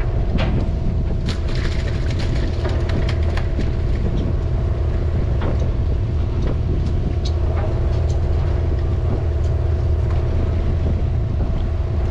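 Party fishing boat's engine running with a steady low drone and hum. Scattered sharp clicks and knocks sound over it throughout.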